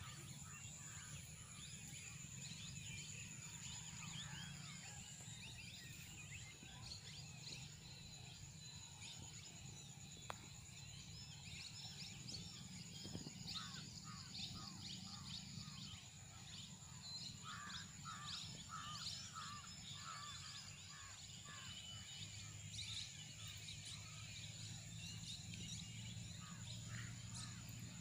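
Faint rural ambience: birds chirping and calling, many short calls in a row around the middle, over a steady high-pitched tone and a low rumble.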